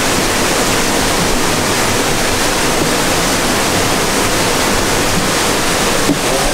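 Steady loud rush of running water.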